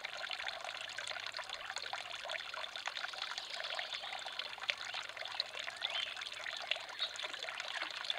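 Water trickling steadily from the upper shell bowl of a concrete garden fountain into the birdbath basin below, a continuous splashing patter.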